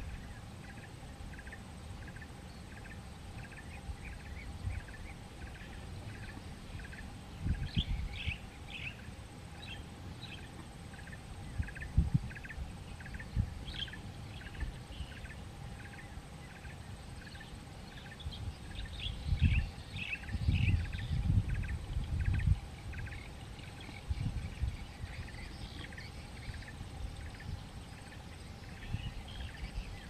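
Birds chirping: a steady run of short, quick calls, busier and higher-pitched in two stretches. Several bursts of low rumble are the loudest sounds.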